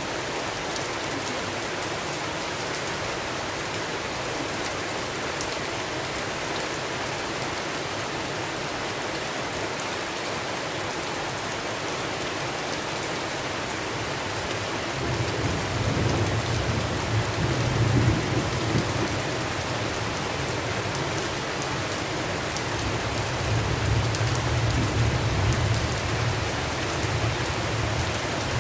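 Steady heavy rain hissing on surfaces. About halfway through, a low rolling rumble of thunder builds and swells twice.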